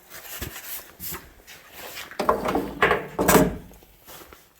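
Knocks and rattling of a salvaged microwave magnetron being handled and set down on a scale, with the loudest clunks a little past the middle.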